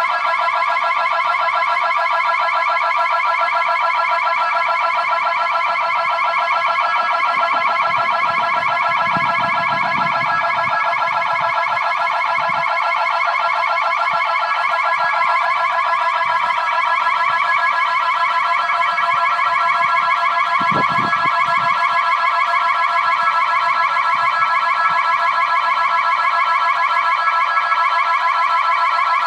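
Building security alarm sounding continuously and loudly, a steady electronic tone with a fast, even warble. It has been triggered and left ringing with no one responding.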